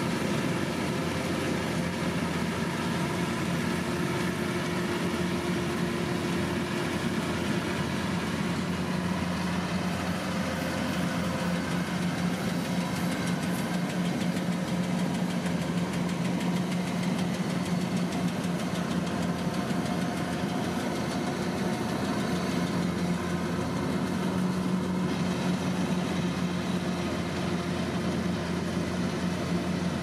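Kubota DC-108X combine harvester's diesel engine running steadily as the machine cuts rice, a constant even drone with no sudden knocks or changes.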